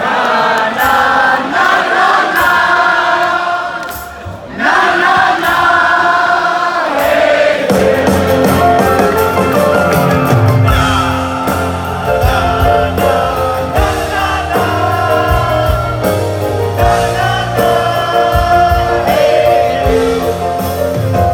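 Live band with several men singing together into microphones. A brief dip comes about four seconds in, and about eight seconds in the band's bass and fuller accompaniment come in under the singing.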